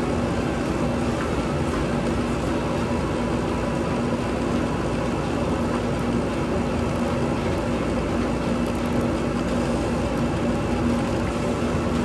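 Bryant gas furnace running with its burners lit: a steady rushing noise with a low, even hum.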